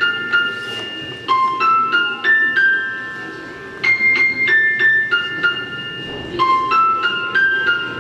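Music: a light, tinkling melody of single high keyboard-like notes, each ringing on briefly, with the same short phrase repeating about every two and a half seconds.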